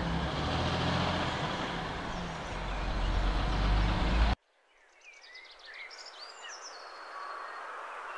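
Steady wind rush and rumble on a moving cyclist's microphone that cuts off abruptly about four seconds in. After a moment of silence, faint birdsong, short chirps, comes in over a soft hiss.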